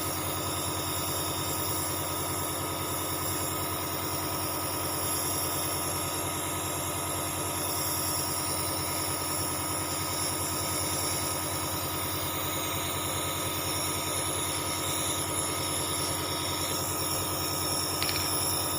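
Dr Trust compressor nebulizer running: a steady, even hum and buzz from its electric compressor.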